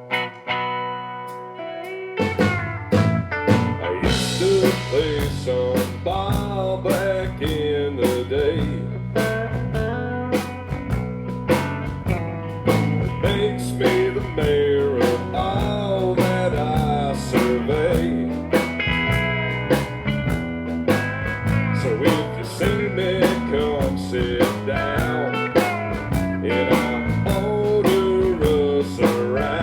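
Live country band playing an instrumental passage. A held chord rings out first, then about two seconds in the drums, bass and guitars come in together, with a lead guitar line of bending notes over a steady beat.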